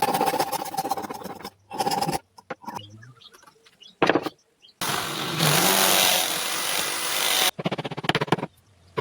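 Woodworking power tools cutting wood in several separate short bursts. A fast, even pulsing with a steady tone comes first and again near the end. In the middle is a sharp burst, then a loud, even rushing noise of a few seconds that cuts off suddenly.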